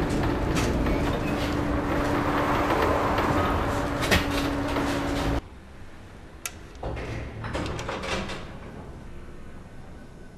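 Tram interior noise: a steady rumble with a steady hum, which cuts off suddenly about five seconds in. Then, quieter, a lift's doors and mechanism give a few clicks and knocks.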